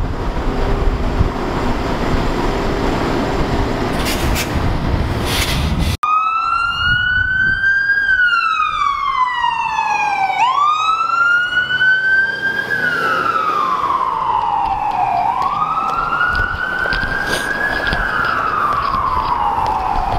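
Street traffic with a streetcar passing for the first few seconds, then after an abrupt cut about six seconds in, an emergency-vehicle siren wailing in slow rising and falling sweeps.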